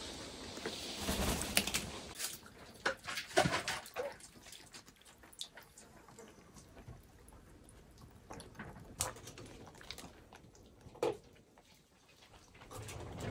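Chickens drinking from a rubber bucket of water: beaks dip and tap at the water and bucket, with small splashes and drips. The sounds come as scattered taps, busiest in the first few seconds, with a couple of lone sharper taps later.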